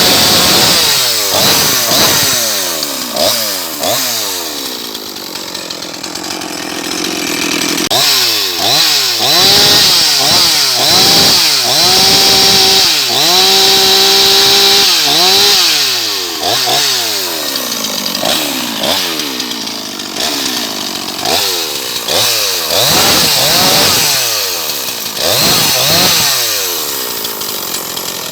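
Husqvarna 353 two-stroke chainsaw running, its throttle blipped over and over so the engine revs up and drops back, held at high revs for a few seconds about halfway through.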